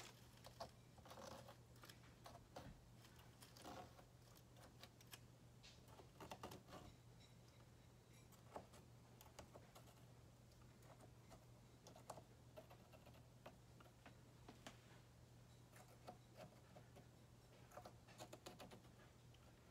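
Faint scratching and irregular light ticks of a thin pointed tool cutting soft clay around a metal cookie-cutter mold, over a low steady hum.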